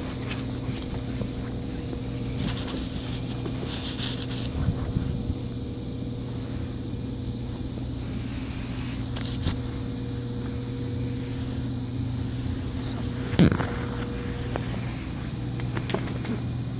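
A steady low mechanical hum with a few even tones in it, overlaid by light rustling and handling noise, and one sharp knock about thirteen seconds in.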